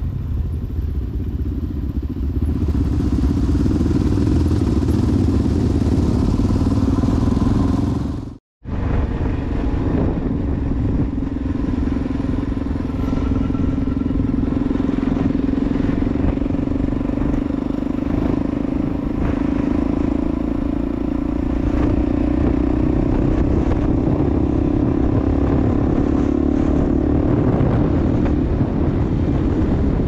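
Motorcycle engine running at a steady cruising speed, heard from on the bike with wind and road noise. The sound cuts out completely for a moment about eight seconds in, then carries on the same.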